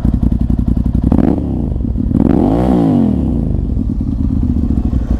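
Ducati Monster 796's air-cooled L-twin engine with an aftermarket full-system exhaust, idling, with a short blip about a second in and a rev that rises and falls back around two and a half to three seconds in before it settles to idle.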